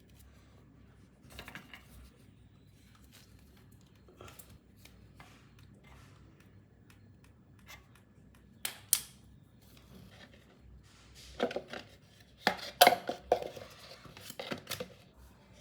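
Small hand tools and parts being handled: scattered light clicks, two sharp clicks about nine seconds in, then a burst of clicking and clinking clatter near the end.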